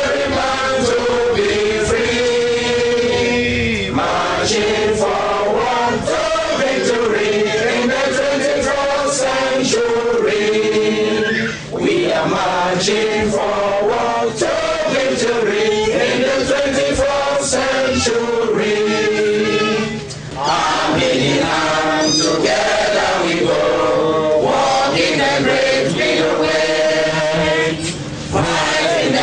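A group of voices singing a marching song together, the melody rising and falling, with short breaks between phrases.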